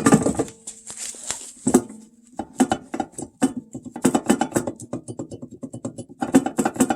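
Background music led by plucked guitar, with irregular strummed or picked notes over a held low note.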